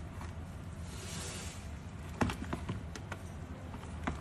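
Giant bullfrog snapping up crickets on a tiled floor: a few sharp taps and clicks, clustered about two to three seconds in with one more near the end, over a steady low hum.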